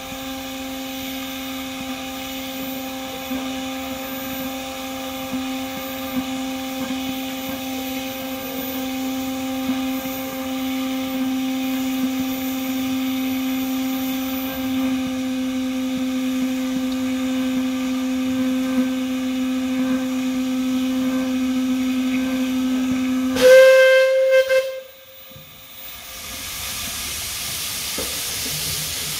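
Miniature 10¼-inch gauge steam locomotive letting off steam with a steady whistling tone. About 23 seconds in comes a short, loud, shrill whistle blast, then a hiss of escaping steam builds near the end.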